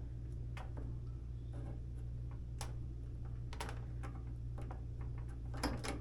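Irregular light clicks and taps of plastic dryer parts being handled and pressed into place, a handful of sharp ticks with a small cluster near the end, over a steady low hum.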